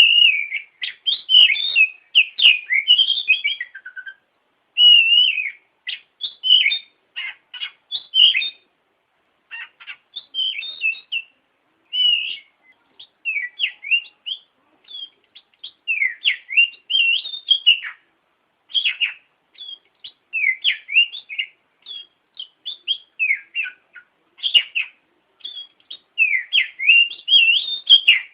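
Oriental magpie-robin (kacer) singing: rapid strings of varied whistled notes, sweeps and chirps in bursts separated by brief pauses.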